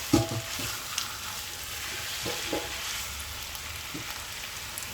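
Chicken pieces sizzling as they fry in ginger-garlic paste, with a spoon knocking and scraping against the pan a few times while they are stirred, the loudest knock right at the start.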